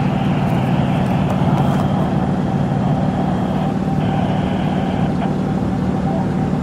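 Steady motor-vehicle noise: a car engine running with a constant low hum, unchanging throughout.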